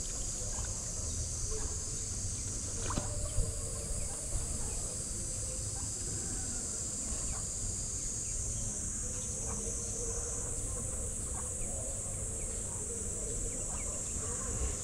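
Steady high-pitched insect drone from the trees, with a few faint short clicks.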